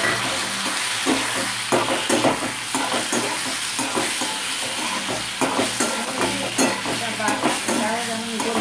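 Metal spatula stirring and scraping potato cubes and freshly added tomato paste around a metal pan, with repeated scraping strokes over a steady sizzle of hot oil.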